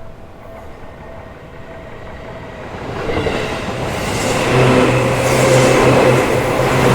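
Seibu Shinjuku Line electric commuter train approaching and passing the level crossing, growing louder from about three seconds in, with a steady low hum joining the noise of the running train about halfway through.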